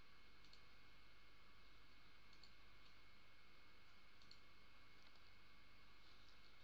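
Faint computer mouse clicks, about four, roughly two seconds apart, over a low steady hiss.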